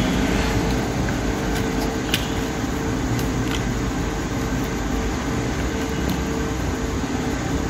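Steady whirring fan or air-conditioner noise with a constant hum, and a few faint clicks.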